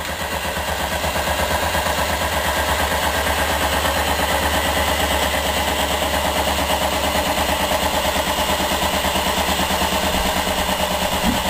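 Rhombic-drive Stirling engine, pressurized to 30 psi, running fast with a rapid, even mechanical clatter while the battery still drives its generator as a starter motor. It gets louder over the first couple of seconds, then holds steady.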